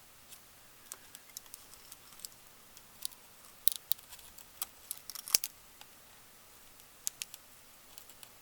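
Small sharp clicks and ticks of soldering tools and solder braid being worked against a circuit board, irregular and scattered, thickest between about three and five and a half seconds in, with the loudest click near five and a half seconds.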